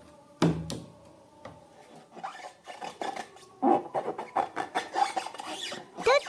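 Slime being worked by hand, with a dense run of sticky crackling and clicking squishes. A single thump comes about half a second in.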